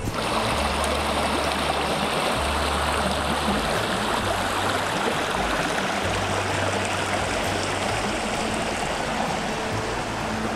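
Small mountain creek rushing and splashing over rocks: a steady, even rush of water.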